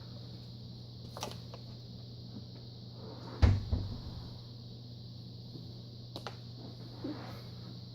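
One loud knock about three and a half seconds in, with a few lighter clicks before and after it, over a steady low hum and hiss.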